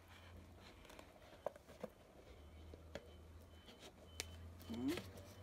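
Faint taps and light rustling of a handmade cardstock gift box being handled and turned over on a tabletop, a few separate small knocks over a steady low hum. A brief vocal sound near the end.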